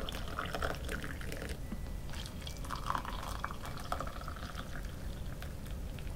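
Hot water poured from an electric kettle into ceramic mugs holding tea bags: a steady trickling splash as each mug fills.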